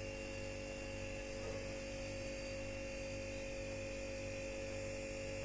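Steady electrical mains hum with a faint hiss, a constant buzz of several steady tones.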